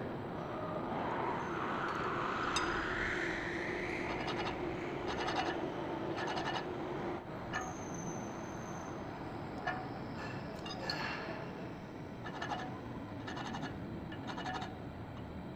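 Light metal clicks and scrapes of steel measuring tools, a rule, a vernier caliper and a flat bar, being set against the jaws of a four-jaw lathe chuck. A rising whine is heard over the background about two to four seconds in.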